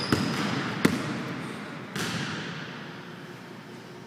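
Basketball bouncing on a hardwood gym floor: three separate bounces in the first two seconds, the last trailing off in a fading echo.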